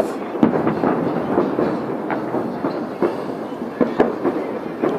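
Fireworks going off: a steady rumble of bangs and crackling, with a few sharper, louder bangs.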